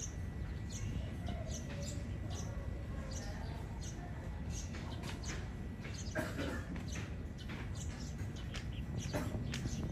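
Small birds chirping in short, scattered high calls over a steady low rumble.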